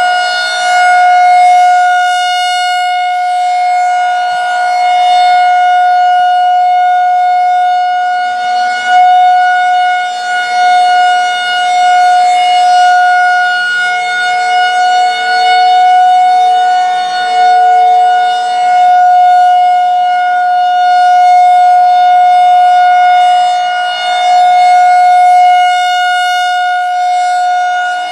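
Federal Signal 2001-130 rotating outdoor warning siren sounding the steady alert tone during its monthly test. The pitch holds constant while the level swells and dips every few seconds as the rotating horn sweeps past.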